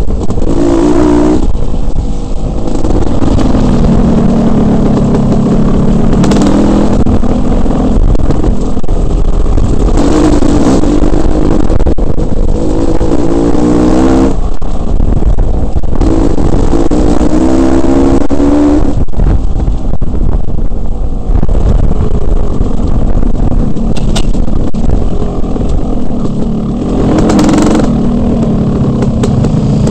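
Dirt bike engine revving up and dropping back again and again as the rider shifts through the gears, loud and close with wind rushing over the microphone; it eases off near the end.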